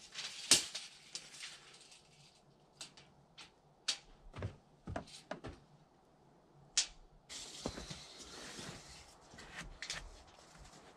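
Scattered sharp clicks and knocks from a steel tape measure being pulled out, held and handled, with a stretch of rustling noise about seven seconds in.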